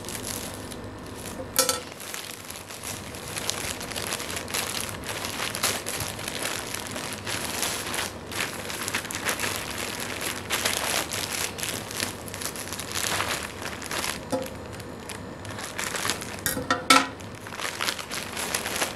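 Plastic courier mailer bag crinkling and rustling as it is cut open with scissors and handled, with two sharp clicks, about two seconds in and again near the end.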